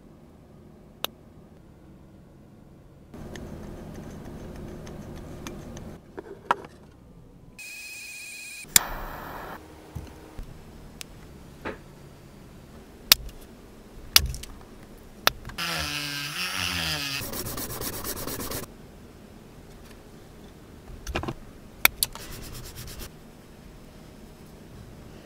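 A string of small handcrafting sounds at a workbench: sharp clicks and taps of tools and tiny plastic parts, a brief steady high tone about eight seconds in, and a wavering squealing rub lasting about three seconds around the middle. Near the end there is a short run of quick rubbing strokes, likely a tiny part worked on sandpaper.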